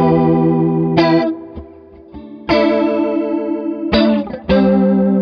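Electric guitar chords played through an MXR Micro Chorus pedal with its rate knob turned nearly to full, giving a fast pulsing wobble that imitates a Leslie rotary speaker at fast speed. The chords ring out and are struck anew several times, with a short lull about two seconds in.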